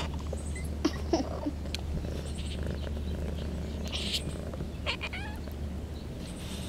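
Two-week-old kittens giving short mews, a rising pair about a second in and a falling one near five seconds, over a steady low purr.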